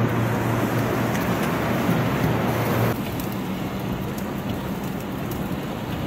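Steady city street noise with a low engine hum, changing abruptly about three seconds in to a quieter, even wash of traffic noise.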